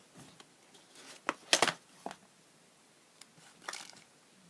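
Camera box and its packaging being handled and opened: scattered rustles and clicks, the loudest a short burst about a second and a half in, another near the end.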